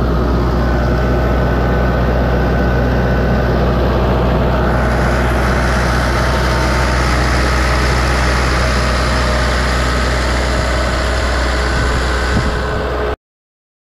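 Diesel engine of an Atlas Copco XAS 186 portable air compressor running steadily, a low even drone under a broad hiss. The hiss grows louder about four and a half seconds in, and the sound cuts off suddenly near the end.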